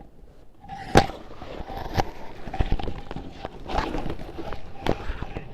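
Unassembled wooden bench parts being handled in a cardboard shipping box: rustling of box and packing with several sharp knocks of wood, about one a second.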